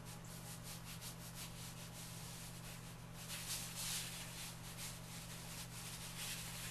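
Lecturer's chalk rubbed and stroked across a drawing surface in quick, repeated scratchy strokes, a little louder about three to four seconds in, over a faint steady low hum.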